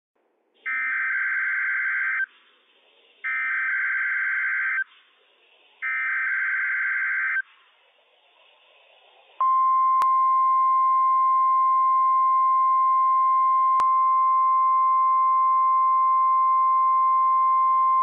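NOAA Weather Radio emergency alert signal for a Required Weekly Test: three short bursts of warbling SAME digital header data, each about a second and a half and evenly spaced, then, about nine seconds in, the steady single-pitched 1050 Hz warning alarm tone.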